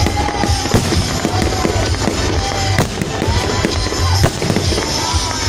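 Fireworks salute going off continuously: a dense run of sharp bangs and crackles over a rolling low rumble of bursting shells.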